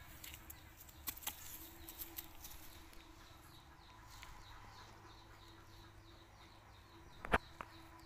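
Quiet open-air ambience with a bird chirping in a rapid, even series of short high notes in the background. Two light clicks come about a second in, and one sharp knock sounds near the end.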